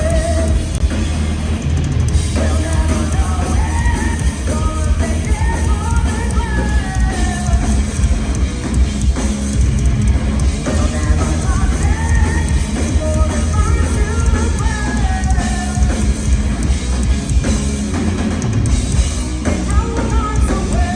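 Heavy metal band playing live: a female lead singer's long, melodic sung lines over loud drums, bass and guitars.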